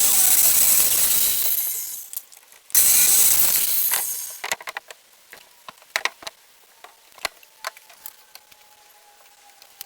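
Circular saw cutting through 2x6 lumber, two cuts of about a second and a half each, the second starting just under three seconds in. Scattered clicks and knocks follow.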